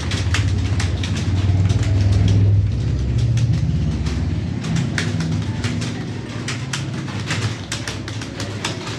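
Computer keyboard keys clicking in quick, irregular strokes as someone types, over a low rumble that is loudest in the first half and fades after about four and a half seconds.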